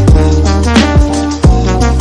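Background music: electronic music with a heavy bass line and a steady drum beat, about two beats a second.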